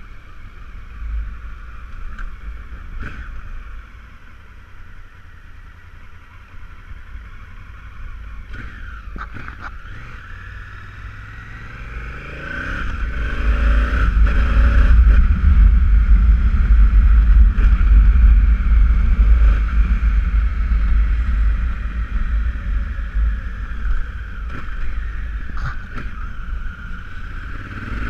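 Honda Africa Twin CRF1000L's parallel-twin engine carrying the bike along a wet street, heard on board with road noise. Fairly quiet for the first ten seconds or so, then the engine note climbs in rising sweeps as the bike accelerates, loudest in the middle, easing off, and rising again right at the end.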